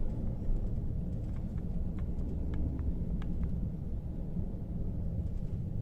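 Low, steady rumble of a car on the move, heard from inside, with a few faint clicks in the middle.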